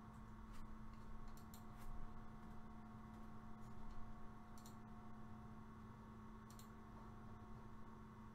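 A few faint, scattered computer mouse clicks over a steady low electrical hum, in a quiet small room.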